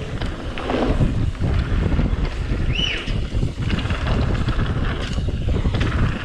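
Wind buffeting a point-of-view camera's microphone over the low rumble and rattle of a mountain bike rolling fast over a packed-dirt trail, with a brief high squeal about three seconds in.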